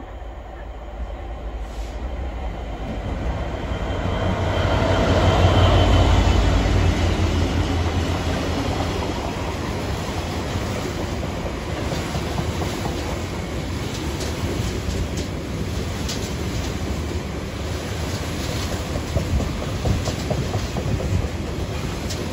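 GBRF Class 66 diesel locomotive's two-stroke V12 engine rumbling as it approaches and passes, loudest about five to seven seconds in. A long rake of flat wagons loaded with rails then rolls by, with steady wheel noise and many clicks and clanks of wheels over the track.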